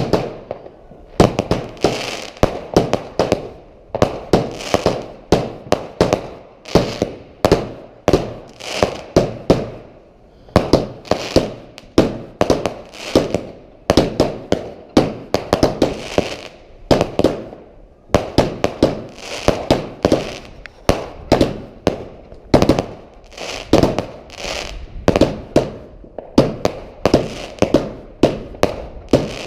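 Fireworks going off in quick succession: a steady barrage of sharp bangs, several a second, coming in clusters about every one to two seconds.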